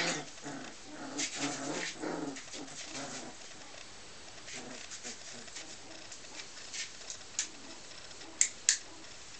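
Tibetan Mastiff puppies play-fighting, growling in short bursts over the first three seconds, then scattered soft scuffling clicks. Two sharp clicks stand out near the end.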